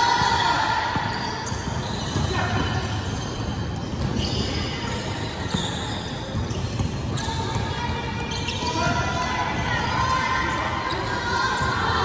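Basketball bouncing on a hardwood gym court during a game, over steady gym noise with children's voices and shouts, which grow near the end.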